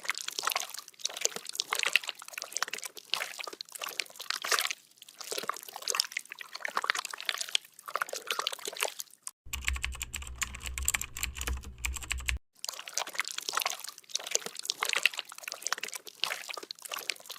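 Slime being mixed and squished by hand, giving a run of irregular wet, sticky clicking and crackling. For a few seconds in the middle a low hum sits under it.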